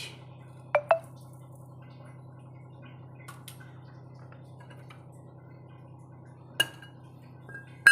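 A metal spoon clinks against a bowl twice in quick succession about a second in, once more near the end and loudly right at the close, each clink ringing briefly, over a steady low hum.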